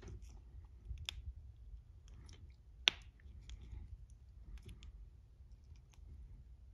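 Faint clicks and scrapes of an Apple AirTag's stainless steel battery cover being twisted back onto its plastic body by hand, with one sharper click about three seconds in.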